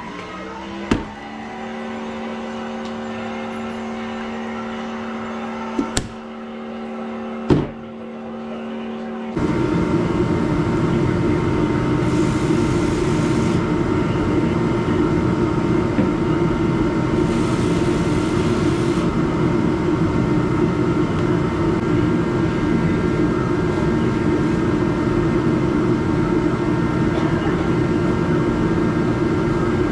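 Steady tones with a few sharp clicks, then, from about nine seconds in, an ATV engine running loud and steady.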